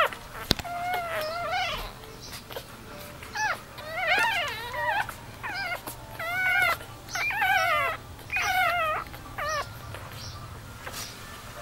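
Newborn French bulldog puppies whimpering and squealing in a run of high, wavering cries, several overlapping, that grow fainter near the end. A single sharp click about half a second in.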